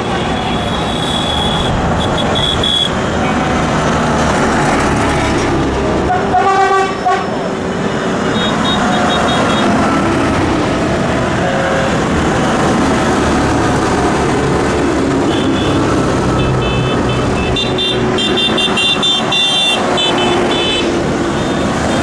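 Convoy of tractors driving past, engines running steadily. A horn sounds once for about a second roughly a third of the way in, and a string of short, high toots comes near the end.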